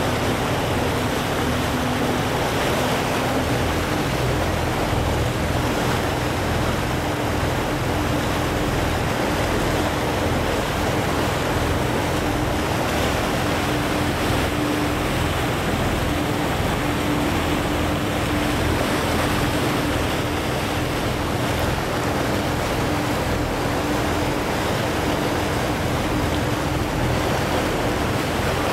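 Motorboat engine running with a steady hum that steps up in pitch about three seconds in, over a constant rush of water and wind.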